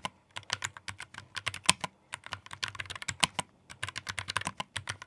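Typing on a Keychron K3 Max low-profile mechanical keyboard with red switches: a fast run of clicky keystrokes, broken by short pauses about two seconds in and again about three and a half seconds in.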